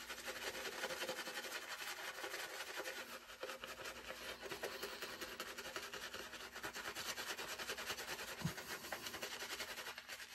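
Shaving brush worked rapidly over a shaving-soap lather, a continuous dense bristly rubbing made of many fast strokes.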